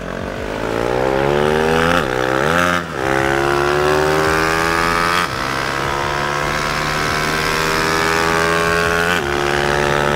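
Honda CRF250L's single-cylinder four-stroke engine accelerating hard, rising in pitch and dropping back at each upshift, several times through the gears.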